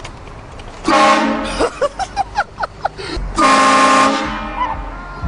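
Train horn blasting twice, several chime tones sounding together: a short blast about a second in, then a longer, roughly one-second blast past the middle.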